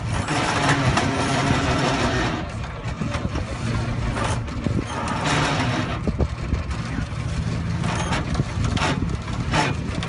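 A vehicle engine running steadily, most likely the vehicle hauling on the tow rope, with a few bursts of rushing noise over it.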